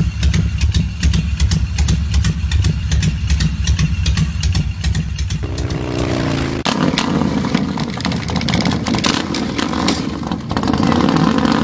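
Motorcycle engine running and revving, its pitch falling a little past halfway through, then running on steadily.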